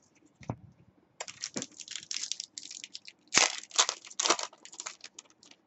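A stack of trading cards slid and flicked through the hands, card rubbing on card: a quick run of short papery swishes, loudest about three and a half seconds in.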